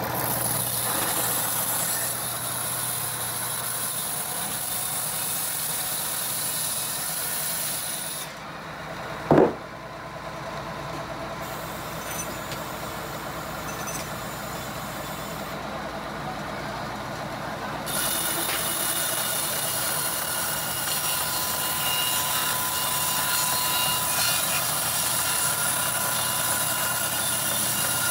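Band sawmill running through a mahogany log: a steady mechanical din with a constant high whine. About nine seconds in, a single short, loud blast stands out above it.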